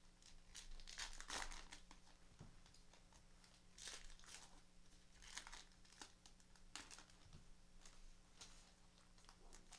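Baseball card pack wrappers being torn open and crinkled by hand, a string of short crackling rustles every second or so.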